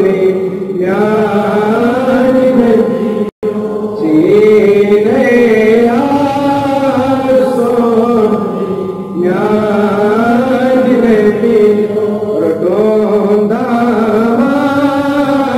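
A boy's voice chanting a Kashmiri naat, a devotional poem in praise of the Prophet, solo without instruments, in long melodic lines that rise and fall. The sound cuts out for a split second about three seconds in.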